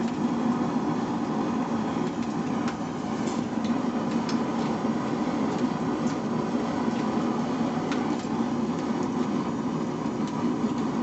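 Forge running steadily with a continuous low rushing noise, as metal heats in it, and a few faint clicks.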